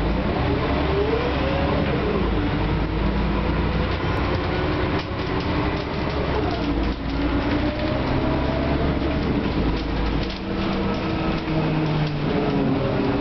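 Cabin sound of a Mercedes-Benz O500LE bus with a Euro 3 engine and ZF six-speed gearbox, running and pulling away. A steady low rumble underlies engine and transmission whines that rise and then drop several times as the bus gets under way.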